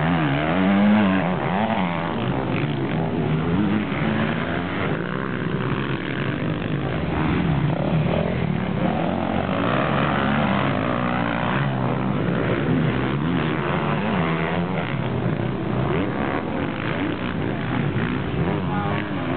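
Motocross bike engines revving hard on the track, their pitch rising and falling again and again as the riders open and close the throttle.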